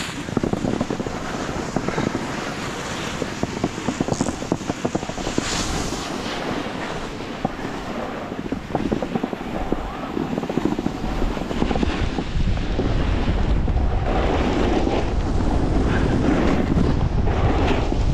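Wind buffeting the microphone of a snowboarder's action camera on a fast run, over the scraping hiss of the snowboard's edges carving packed snow. The low wind rumble grows stronger about two-thirds of the way through.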